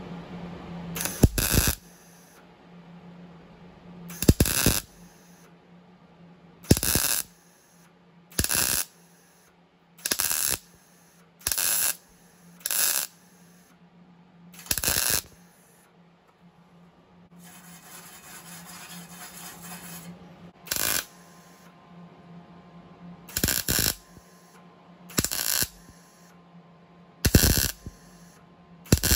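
MIG welder stitch-welding a sheet-steel patch into a 1969 Plymouth Road Runner's tail panel in short tacks. About a dozen brief bursts of arc, each under a second and one to three seconds apart, with a pause of several seconds midway.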